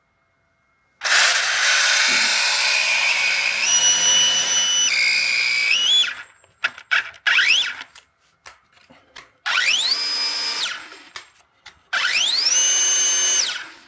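Cordless DeWalt multi-tool power head driving its chainsaw attachment with no load, at low and high speed. It runs in several goes with a few short blips in between, each time the motor whine rising as it spins up, holding, then stopping.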